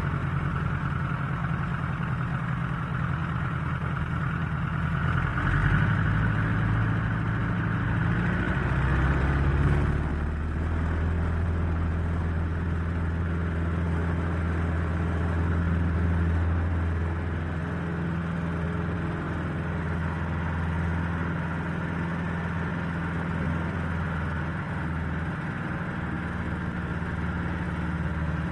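Airplane engines during takeoff, a steady low drone with a rushing hiss above it. About ten seconds in the hiss fades and the drone drops lower and settles.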